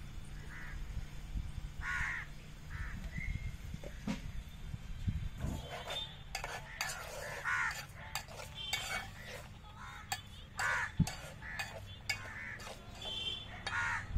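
An animal giving short, harsh, crow-like calls again and again at uneven intervals, busier in the second half, with scattered sharp clicks and light clatter.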